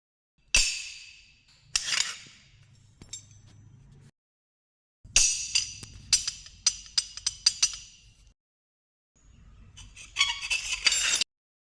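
Metal parts clinking and knocking in short, separately cut bursts of handling: a couple of single ringing strikes, then a quick run of taps and clinks, then another cluster of clinks, with dead silence between the cuts.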